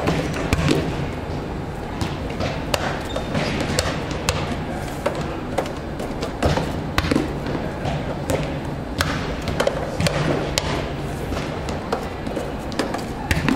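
Volleyballs being served and struck, with irregular sharp smacks and bounces echoing in a large hall over a constant hubbub.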